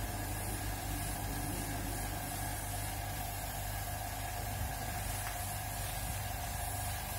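Air compressor motor running with a steady hum, under the hiss of compressed air from an airbrush spraying paint.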